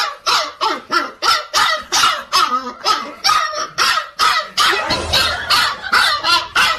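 A dog barking over and over in a fast, unbroken run of short barks, about three to four a second.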